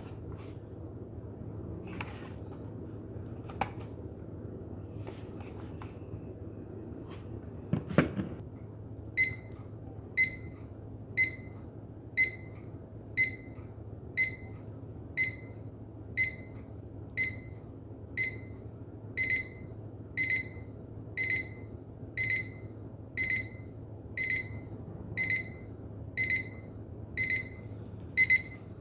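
Timex battery alarm clock's alarm going off: a high electronic beep repeating about once a second, starting about a third of the way in and growing louder toward the end. A few sharp clicks come before it.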